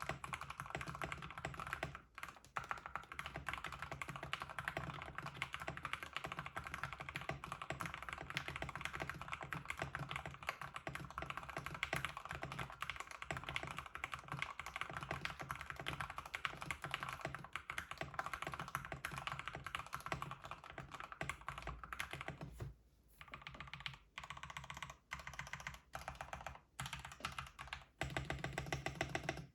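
Typing on a custom 65% mechanical keyboard with lubed Everglide Aqua King linear switches on a POM plate and CRP-style keycaps: a fast, dense run of keystrokes that slows to separate presses with short pauses about 23 seconds in, then speeds up again near the end.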